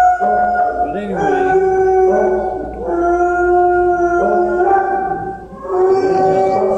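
Several kennelled shelter dogs howling together: overlapping long held notes at different pitches, with fresh howls starting every second or so.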